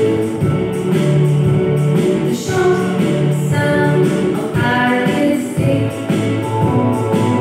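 Upbeat music with singing: a song from the phonics software, played aloud over the board's speakers and picked up in the room.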